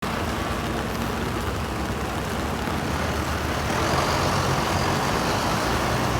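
City street traffic: a large vehicle's engine running close by, with a low steady hum that grows stronger near the end, over a continuous hiss of street noise.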